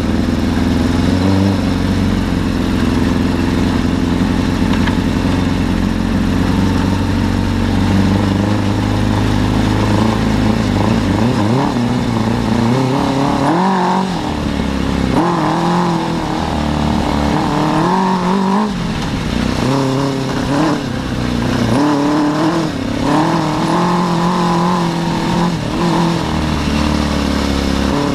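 Suzuki 600 cc inline-four motorcycle engine driving an off-road buggy, running steadily at first, then revving up and down over and over from about ten seconds in.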